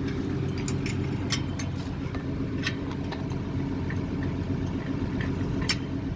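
A vehicle engine running steadily, with scattered sharp clicks and rattles over it, the loudest about a second in and near the end.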